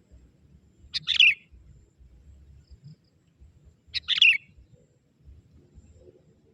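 Young sooty-headed bulbul calling: two short bursts of quick chirpy notes, about a second in and again three seconds later.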